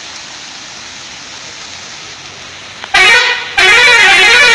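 Tourist bus's musical air horn playing a warbling tune whose pitch swings up and down, a short blast about three seconds in and then a longer one. Before it, a steady hiss of water spray.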